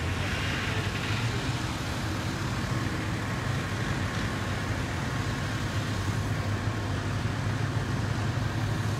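A large engine running steadily in the background, an even low drone under a wash of mechanical noise.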